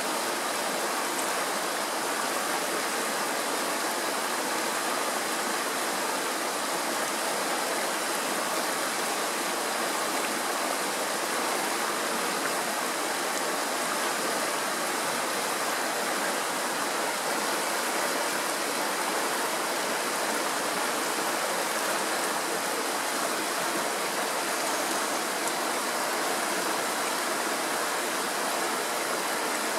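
Shallow mountain stream running over rocks in small riffles: a steady, even rush and burble of water that does not change.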